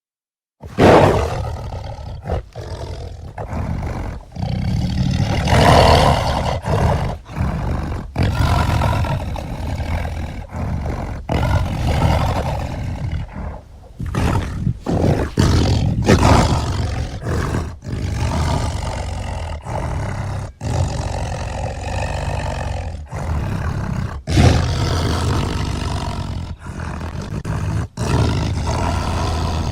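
Cartoon mongoose sound effect: a string of rough, roaring animal cries broken by many short gaps, starting after a brief silence.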